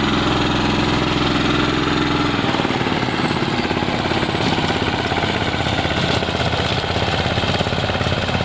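Mahindra Yuvraj 215 NXT tractor's single-cylinder diesel engine running steadily under load while driving a rotavator that tills the soil. The engine note shifts slightly about two and a half seconds in.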